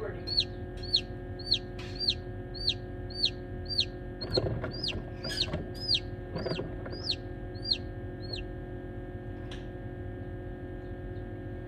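A newly hatched chick peeping loudly and repeatedly, about two high, falling peeps a second, stopping a little past eight seconds in. A steady hum runs underneath.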